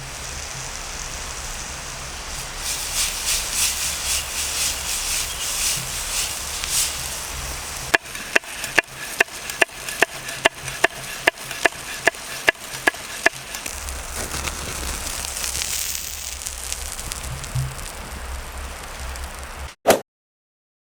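Campfire crackling, with a run of about fourteen evenly spaced sharp, ringing knocks, about two and a half a second, in the middle. A loud thump near the end, then the sound cuts off suddenly.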